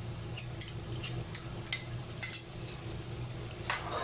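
Light, scattered clinks of metal spoons against a cooking pot as yogurt is spooned into a potato masala, over a steady low hum.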